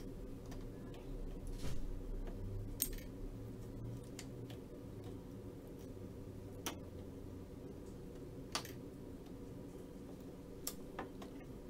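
Scattered sharp clicks and light handling noises from wire connectors and plastic parts being worked by hand inside a partly disassembled Kyocera printer, over a steady low hum.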